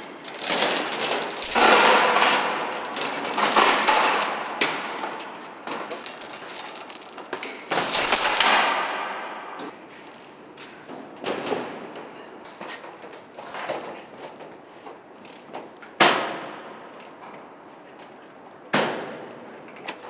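Steel lashing chains rattling and clanking against metal while cargo is chained down with lever tensioners. A dense stretch of clatter with bright metallic ringing gives way after about ten seconds to scattered single clanks, with two sharp bangs near the end.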